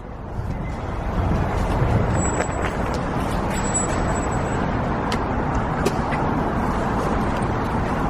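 Car on the move: steady road and engine noise that builds over the first second or two as it gets under way, then holds, with a few light clicks.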